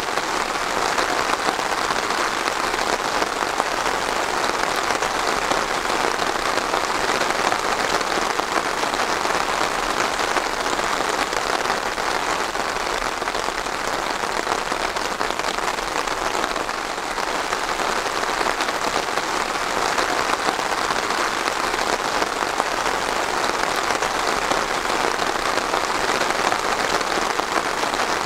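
Steady rain falling and pattering on a surface, an even dense hiss with no let-up.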